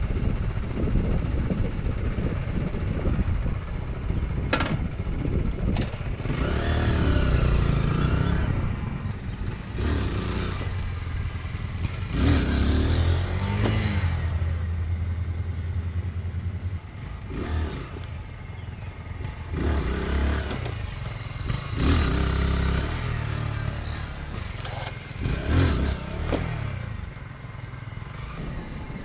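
Kawasaki Z125 Pro's small single-cylinder engine being ridden, revving up and dropping back about five times as the throttle is opened and closed.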